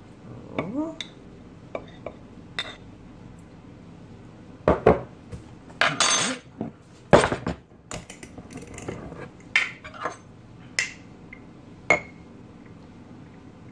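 Metal spoon clinking and scraping against glass jars: stirring a sourdough starter and scooping flour from a glass storage jar. Scattered sharp clinks throughout, with a cluster of louder knocks and scraping about halfway through.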